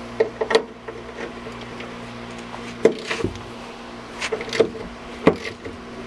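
A few scattered sharp metallic clicks and clinks from a socket and the shroud bolts being handled under a truck, over a steady low hum.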